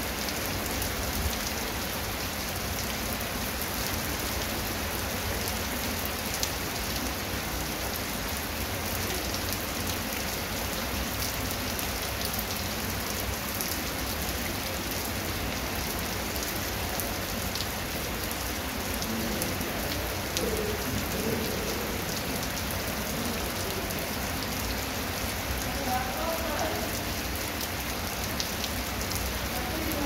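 Heavy rain falling steadily on a wet concrete path and grass, with many single drops ticking through the hiss.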